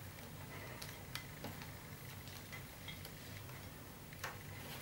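Faint, scattered ticks and taps as rolled-paper weaving tubes are handled and woven around a glass bottle, over a low steady hum; the loudest tap comes near the end.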